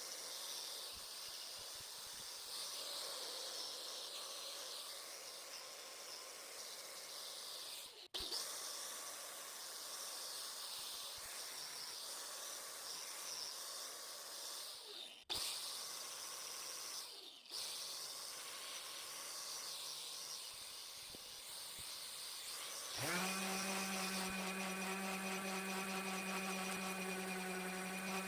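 Steady hissing noise, broken by a few abrupt cuts. About 23 seconds in, a small electric power tool motor switches on and runs at a constant speed with a steady hum.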